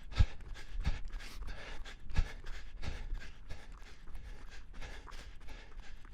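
A person running and breathing hard in quick, rhythmic breaths, with heavy footfalls thudding underneath.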